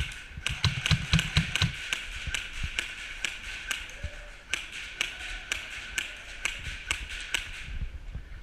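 Airsoft guns firing: a run of sharp cracks and taps, several a second and unevenly spaced, from shots and BBs striking hard surfaces.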